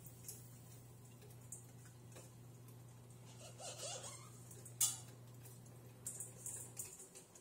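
Quiet kitchen handling sounds: a steady low hum with a few light clicks and taps, and one sharper click about five seconds in. The hum stops shortly before the end.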